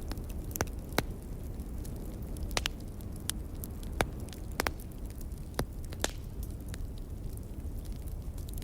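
Burning logs crackling in a fireplace: irregular sharp pops over a low steady rumble.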